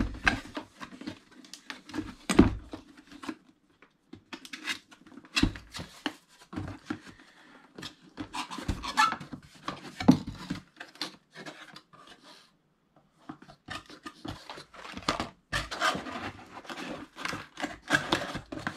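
A box being handled and opened by hand: irregular scraping, rubbing and knocking of the packaging, with a short pause about two-thirds of the way through.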